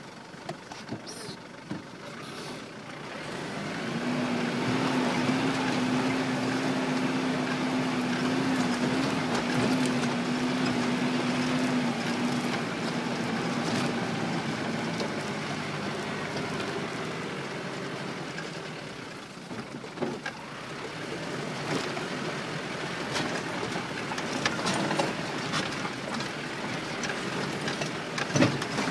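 1978 Daihatsu Rocky 4WD heard from inside the cab, its engine pulling under load along a dirt track. The engine swells a few seconds in and holds a steady drone, eases off briefly around twenty seconds, then builds again. Knocks and rattles of the body come over the bumps, most plainly near the end.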